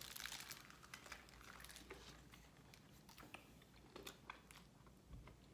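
Faint crunching and chewing of a fried-chicken sandwich on glazed donut buns, bitten into and chewed: small crisp clicks, densest in the first second.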